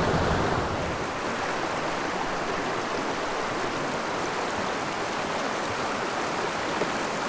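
Small rocky headwater creek running over a shallow riffle: a steady rush of flowing water.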